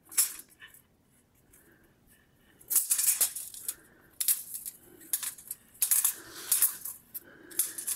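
Thin copper foil crinkling and rattling in short, uneven bursts as it is cranked through the rollers of a small homemade hand-cranked rolling mill, starting about three seconds in.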